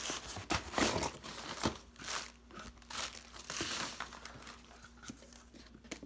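A cardboard shipping box being opened by hand, its flaps pulled back with crinkling and scraping, then a plastic gun case lifted out and handled. The noise thins to a few faint clicks after about four seconds.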